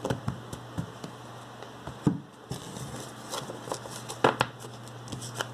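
A stack of Yu-Gi-Oh trading cards being handled and leafed through: cards slide and flick against each other in a string of short clicks and rustles, with a louder cluster of snaps about four seconds in. A steady low hum runs underneath.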